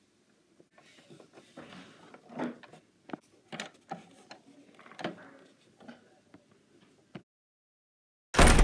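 Scattered small clicks, knocks and rubbing from plastic toys being handled: a toy stable's plastic doors swung open and a plastic figure moved about. Near the end, after a brief dropout, there is one short loud bump.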